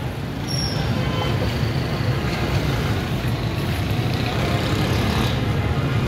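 Steady road-traffic noise with a low, continuous engine rumble from passing vehicles.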